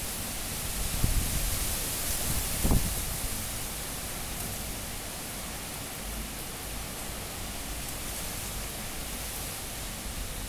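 Cyclone-force wind blowing in a steady hiss, with gusts buffeting the microphone about a second in and again near three seconds.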